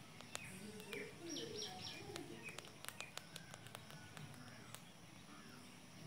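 Faint birds chirping, with a quick run of three high chirps a little over a second in, over scattered sharp little clicks.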